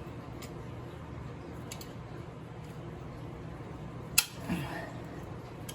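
Vice grips working a stuck, rounding 8mm bolt: one sharp metal click about four seconds in, with a few faint clicks earlier, followed by a short falling grunt. A steady low hum runs underneath.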